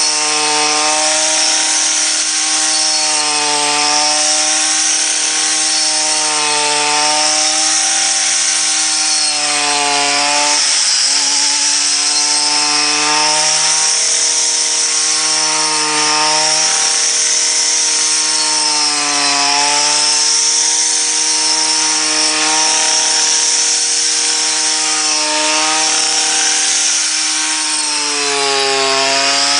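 Small Stihl engine driving a homemade wheat harvester, running fast and steadily, its pitch repeatedly dipping and recovering every few seconds, over a steady high hiss.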